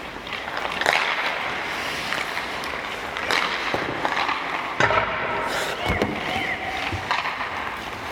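Ice hockey practice on a rink: skate blades scraping the ice under a steady rink hum, with several sharp clacks of sticks hitting pucks and pucks striking the goalie's pads and the net, spaced a second or so apart.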